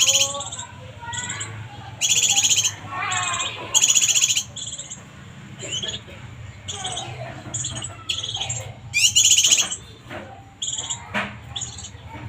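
Bird calls: several short, loud, buzzy trills about two, four and nine seconds in, with softer chirps and sliding whistles between them.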